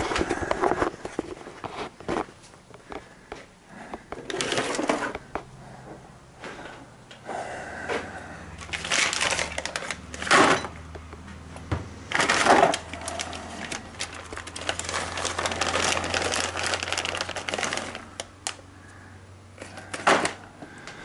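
Hands rummaging among tools and cables on a workbench: irregular rustling, clicks and clatter of objects being moved and handled. A low steady hum comes in about eight seconds in.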